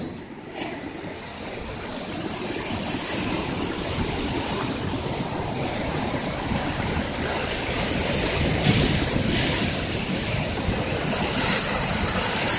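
Ocean surf breaking and surging against the boulders of a rock jetty, with wind buffeting the microphone. The surge builds slowly, and the loudest crash comes about two thirds of the way through.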